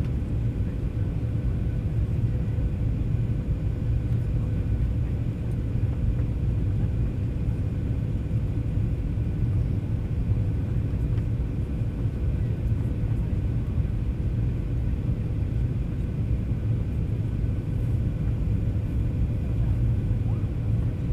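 Steady cabin noise inside a Boeing 737-800 in flight: an even low rumble of the CFM56 jet engines and airflow, with a faint steady hum through it.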